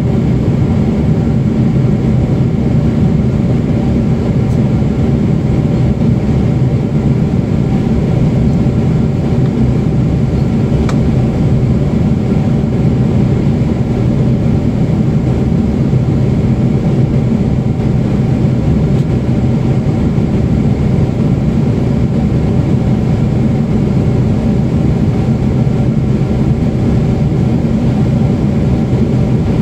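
Cabin noise of a Boeing 747-8 airliner with GEnx engines: a steady, loud, low drone with several steady hums and tones over it. It holds unchanged throughout.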